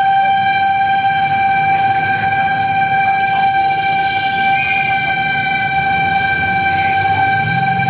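Fire truck's warning siren sounding one steady, unbroken high tone, with the truck's engine running underneath.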